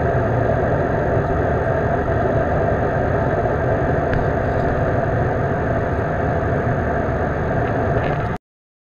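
Steady jet airliner cabin noise in cruise: a dense, even roar of engines and airflow, which cuts off abruptly near the end.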